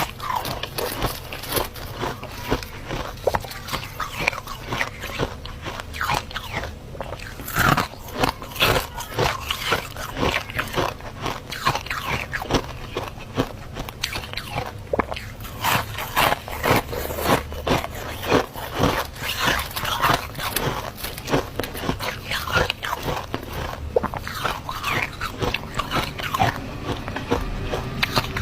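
Freezer frost being bitten and chewed close to the mouth: a continuous, uneven run of crisp crunches.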